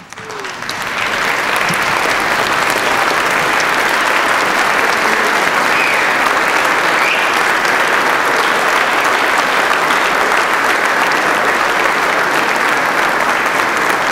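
Large crowd applauding steadily, swelling over the first second or so.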